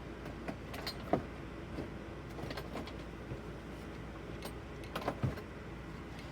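Scattered light clicks and knocks of small objects being handled and moved about, as in rummaging through parts and tools, over a steady low hum.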